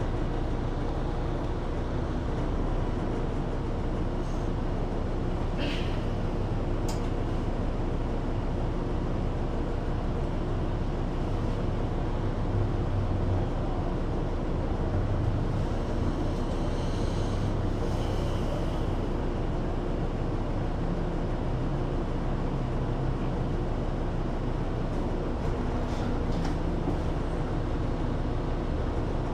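City bus engine idling while the bus stands still, a steady low hum heard from inside the cabin, with cars passing outside. A couple of short clicks about six and seven seconds in.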